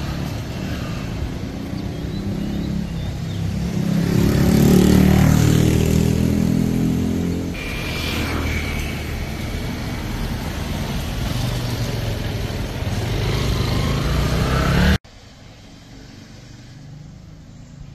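Small motorcycle engine running as the bike rides up close, loudest about five seconds in. The sound cuts off abruptly near the end, leaving a quiet outdoor background.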